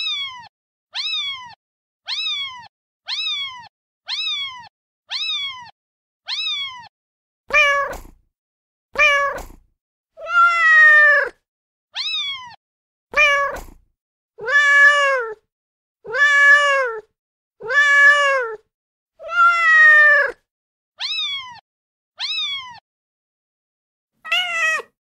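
Recorded cat meows played from a cat-sounds phone app. First comes a run of short, high meows about once a second, then louder, longer meows at a lower pitch, then a few short meows again near the end.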